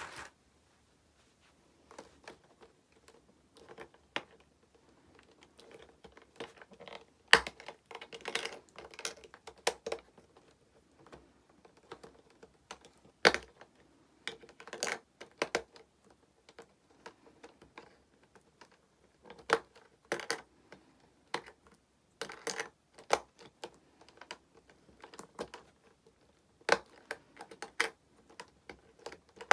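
Hard plastic Prism Stone game stones and their trunk case being handled: irregular small clicks and clacks, with a few sharper, louder clacks and light rustling in between.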